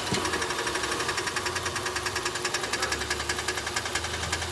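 Rapid, even ticking from a failing CVT transmission on a 2013 Nissan Sentra, several ticks a second over the engine's steady low running hum. The owner takes the ticking for the second replacement CVT beginning to fail.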